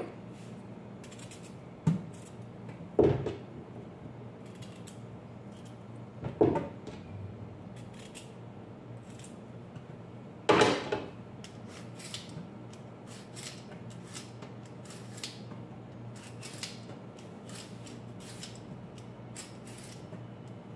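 A kitchen knife scraping the skin off a carrot in quick short strokes. A few louder knocks come in the first half, and a run of light, rapid scrapes fills the second half.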